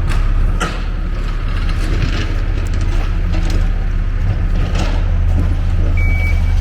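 Diesel earth-moving machine running at a steady low drone while it pushes asphalt millings, with scattered metal clanks and rattles. Its reversing beeper starts sounding near the end.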